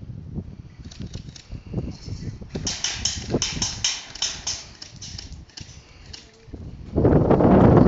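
A quick run of sharp clicks, about seven or eight a second for roughly two seconds, then a loud rushing noise near the end.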